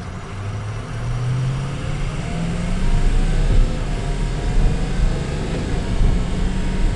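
6.0-litre Power Stroke turbo-diesel V8 of a Ford F-350 heard from inside the cab while accelerating: the engine note climbs in pitch and grows louder over the first three seconds as the automatic transmission is taken up through its gears, then settles into a steady drone.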